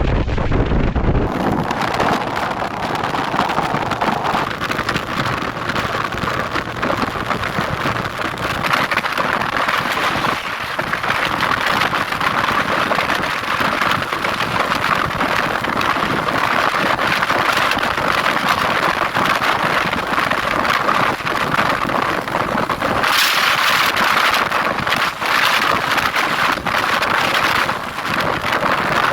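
Strong wind rushing and buffeting over the microphone of a motorcycle underway, a steady noise that rises and falls with the gusts. It turns louder and hissier for a few seconds near the end.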